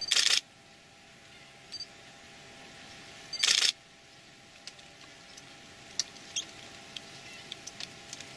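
Camera shutter firing two short rapid bursts, one right at the start and another about three and a half seconds later, over a steady background hiss. Scattered faint ticks follow in the second half.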